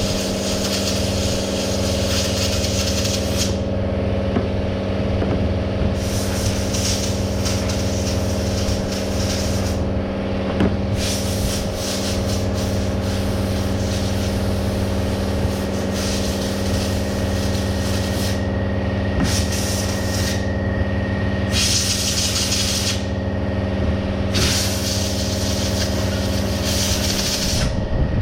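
A machine engine runs steadily. Over it, a hiss of air comes and goes in repeated bursts, each a second to a few seconds long.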